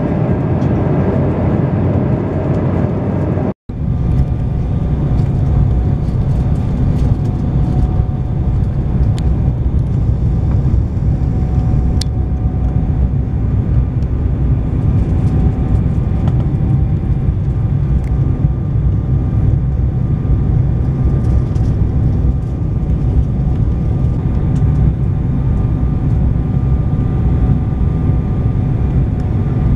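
Airliner cabin noise from a window seat: the jet engines and rushing air make a steady, loud, deep noise with a faint steady hum on top. The sound drops out for an instant about three and a half seconds in, where the recording is cut, and then continues unchanged.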